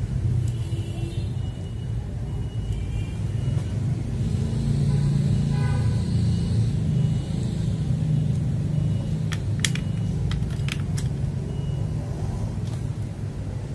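Steady low rumble like a passing motor vehicle, swelling for a few seconds midway, with a few sharp clicks about nine to eleven seconds in.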